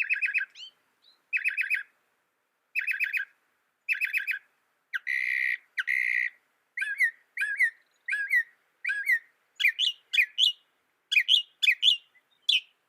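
Mockingbird singing: short bursts of rapid repeated notes, each phrase type repeated several times before switching to another. About five seconds in come two harsher, buzzy phrases, followed by a run of repeated down-slurred whistled notes and then sharper, higher notes near the end.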